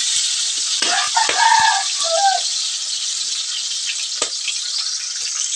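Tomatoes, onion and garlic sizzling in hot oil in a wok, a steady frying hiss, with a few knocks of the spatula against the wok. A short pitched call sounds about a second in.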